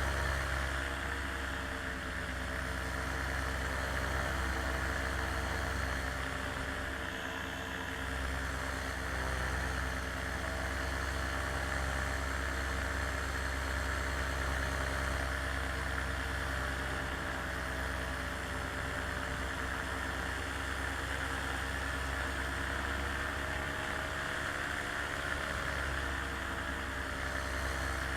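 Aircraft engine and propeller running steadily in flight, an even drone with a hiss of air noise over it, briefly dipping about seven seconds in.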